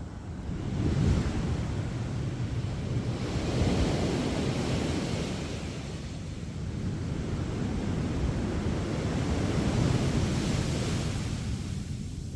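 Sea waves breaking and washing up on a beach. The surf swells louder about a second in, again around four seconds, and near ten seconds.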